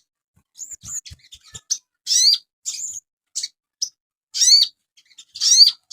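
Sogon songbird singing short, high chirped phrases in bursts with pauses between, several notes sweeping up and bending down. A few faint low thumps come about a second in.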